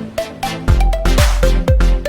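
Electronic dance background music with a quick steady beat; a heavy deep bass kick comes in under a second in.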